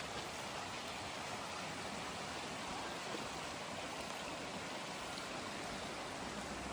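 Steady rush of a small waterfall and the stream below it, an even, unbroken water noise.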